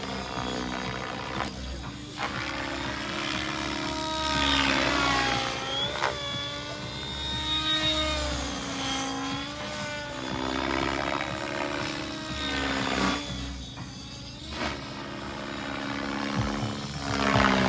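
Electric radio-controlled helicopter flying aerobatics: the whine of its motor and rotors rises and falls in pitch with each manoeuvre.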